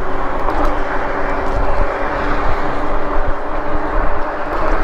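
Lectric e-bike being ridden: wind rumbling on the microphone over tyre and road noise, with a steady whine of several tones from the hub motor.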